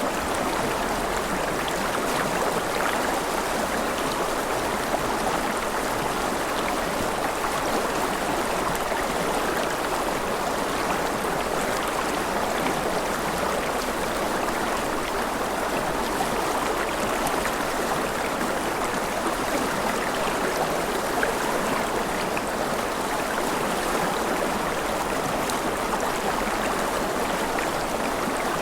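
Gentle rain falling steadily, an even hiss that holds the same level throughout.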